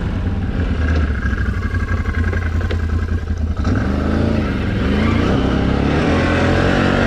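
Can-Am Renegade XMR 1000 ATV's V-twin engine running as it rides a muddy trail, at light throttle at first, then pulling harder with rising and falling revs from about halfway through.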